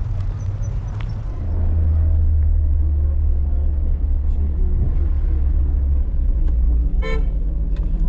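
Steady low rumble of a motor vehicle on the move, getting louder about a second and a half in. A short pitched sound cuts through it once near the end.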